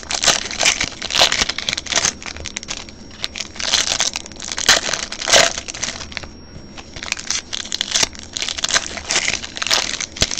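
Foil wrappers of Bowman Draft baseball card packs crinkling and crumpling as they are handled and opened, in irregular bursts with a short lull about six seconds in.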